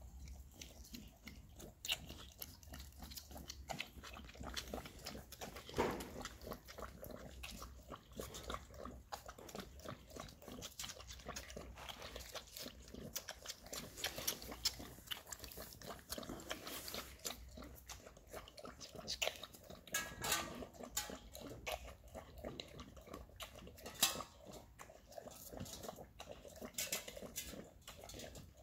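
Miniature Bull Terrier mother eating from a steel bowl while her puppies suckle beneath her: irregular small clicks, chewing and smacking sounds, with a few louder ticks.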